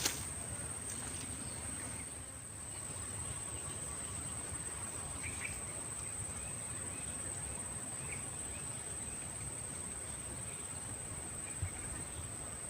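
Insects holding one steady, unbroken high-pitched drone over a low background rumble, with a few faint short chirps now and then.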